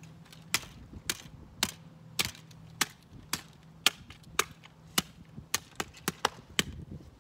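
Repeated hammering blows, about two a second at an even pace. Each one is a short, sharp knock.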